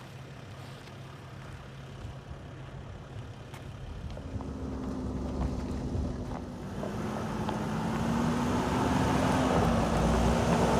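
Mercedes Sprinter 4x4 van's diesel engine working under load as the van crawls up a rocky ledge. It is quiet at first, then from about four seconds in the engine note and the rumble of the van over rock rise steadily and get louder.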